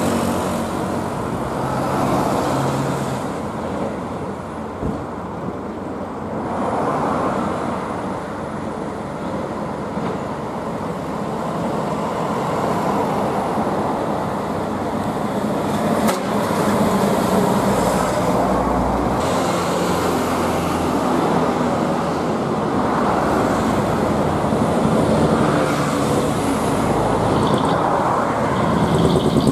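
Customised diesel trucks driving past one after another in street traffic, their engines and exhaust running low over the road noise. The engine sound swells again from about 17 seconds in as the second truck approaches. There is a single sharp click about 16 seconds in.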